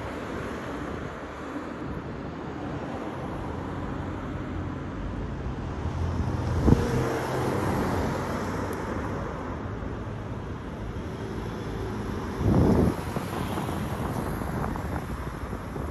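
Cars driving past close by, their tyre and engine noise swelling as one goes by around the middle, with wind buffeting the microphone. A sharp knock a little before halfway and a short thump about three-quarters of the way through.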